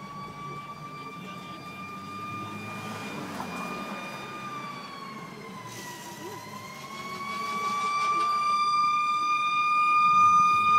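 Emergency vehicle siren sounding one long, held tone that sags in pitch about six seconds in, then climbs back and grows louder toward the end, heard from inside a car.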